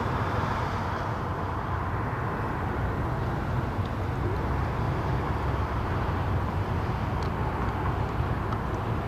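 Airbus A319 jet engines heard from a distance as a steady rumble and hiss while the airliner taxis.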